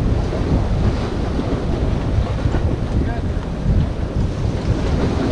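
Wind buffeting the microphone over waves washing against the rocks: a steady, rough noise, heaviest in the low end.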